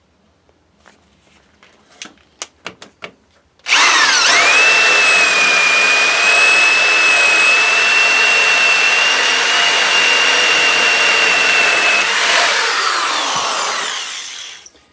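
A few light clicks, then about four seconds in an electric drill starts, its whine rising quickly and holding steady as a 1-inch Irwin Speedbor spade bit bores through wood for about eight seconds. The drill is released near the end and spins down.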